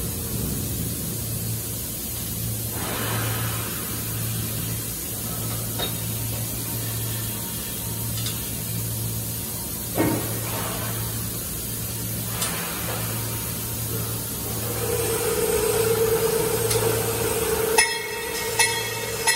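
Factory-floor machinery in a metal fabrication shop: a steady low hum that pulses regularly. A few sharp metal knocks and clanks stand out, one about halfway and several near the end, where a steady higher hum also comes in.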